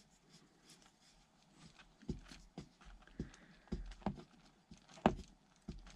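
About a dozen light clicks and knocks, spaced irregularly over the last four seconds, from small parts and a tool being handled while working on an RC crawler's wheels.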